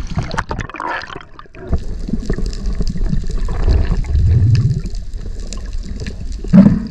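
Underwater sound through a GoPro housing: water rushing and bubbling as a spearfisher kicks with long fins. There is a louder gurgle near the end.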